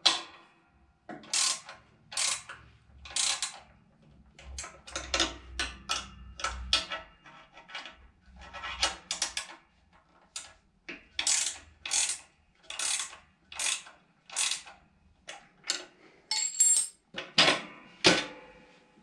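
Ratcheting wrench tightening nylon lock nuts on the mounting bolts: a short ratchet rasp on each back-swing, many strokes at about one or two a second.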